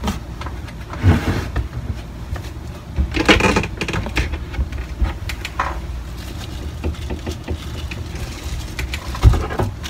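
Handling noise: plastic accessory packaging rustling and small items knocking as they are gathered up, in scattered clicks and short rustles, with the loudest bursts about a second in, around three seconds in and near the end.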